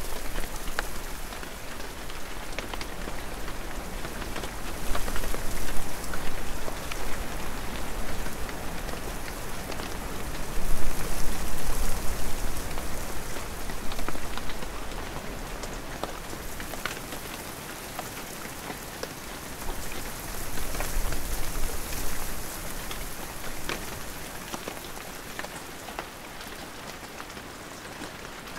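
Steady rain with scattered close drops pattering, and wind gusting up several times.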